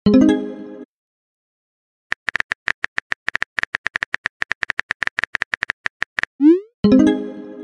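Chat-app sound effects: a short pitched chime as a message pops up, then about four seconds of rapid keyboard-tap clicks as the next message is typed. Near the end comes a quick rising swoosh and another chime.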